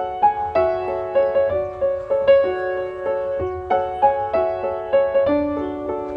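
Background piano music: a repeating phrase of single struck notes, several to the second.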